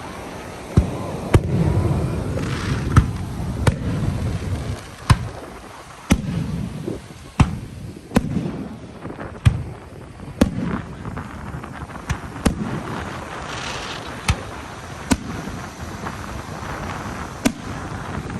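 Fireworks going off: a string of sharp bangs, about one a second at uneven spacing, with low rumbling booms between them.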